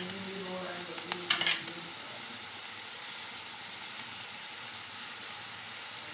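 Shredded vegetables sizzling steadily in a hot metal wok, soy sauce just added. A slotted metal spatula clinks and scrapes against the pan at the start and again at about a second and a half in.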